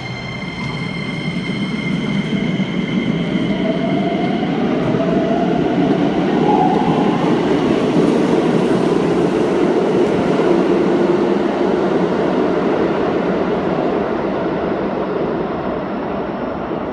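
Keikyu electric train pulling out of the platform. The motor whine rises in pitch as it accelerates, over a running rumble that builds to its loudest mid-way, then slowly eases as the train draws away.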